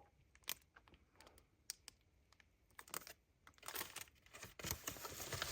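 Scattered light clicks and taps from handling pins and their plastic packaging, giving way to a steadier crinkling of plastic wrapping over the last couple of seconds.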